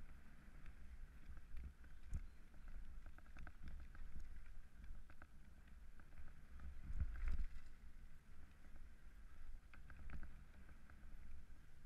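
Mountain bike riding fast down gravel forest singletrack: a steady low tyre rumble and wind buffeting, with scattered rattles and clicks from the bike over bumps and a heavier jolt a little past halfway.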